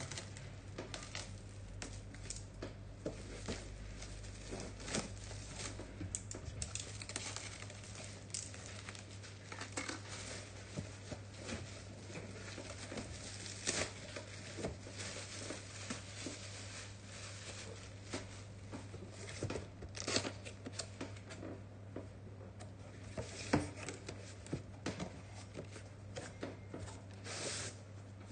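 Plastic shrink-wrap being torn and crinkled off a cardboard box by hand, in irregular rips and crackles, with the cardboard box being handled and its flaps opened near the end.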